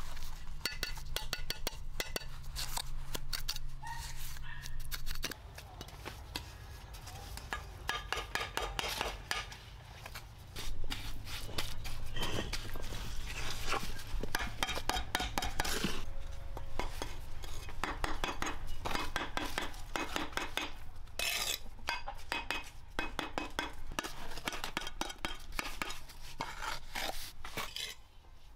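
Bricklaying: a steel trowel scraping and spreading wet cement mortar, with clay bricks set down and pressed into place, giving many short scrapes and clinks.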